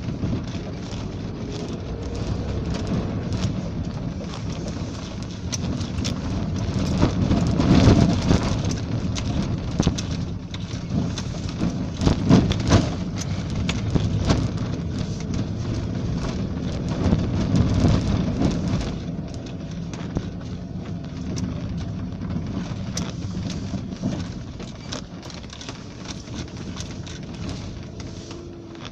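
Vehicle driving along a rough mountain road: a steady low rumble of engine and tyres, with many knocks and rattles as it jolts over the surface. It swells louder several times in the first two-thirds and eases off toward the end.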